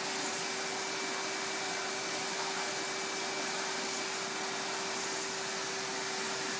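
An electric motor running steadily: an even rushing hiss with a constant hum.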